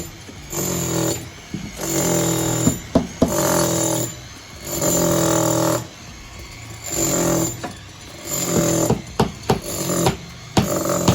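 Background music: held synth chords repeating about every two seconds, with sharp percussive hits coming in near the end.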